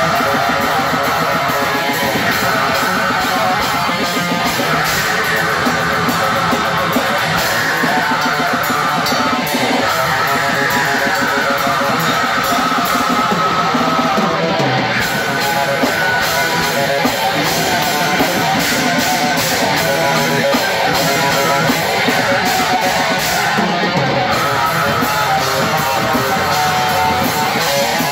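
Live band playing loud heavy rock on electric guitar and drum kit, with steady drumming throughout.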